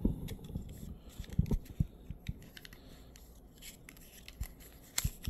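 Hands handling a small plastic Quad Lock vibration dampener and its cardboard backing card: scattered light clicks, scrapes and paper rustles as the part is worked off the card.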